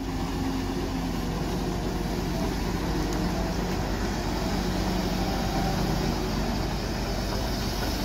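Hyundai wheeled excavator's diesel engine running steadily under load while it digs and loads a dump truck.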